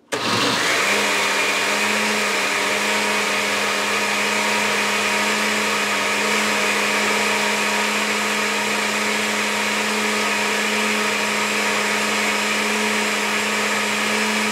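Countertop blender running on its blend setting, mixing a creamy fruit-and-vegetable smoothie with milk and ice. The motor spins up within the first second, then runs at a steady pitch.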